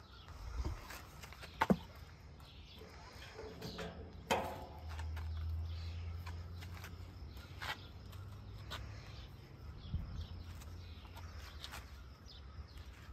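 Clicks and knocks as a folding e-bike is handled and set onto a hitch-mounted bike rack, with one louder metallic clunk about four seconds in. A low rumble follows for a few seconds.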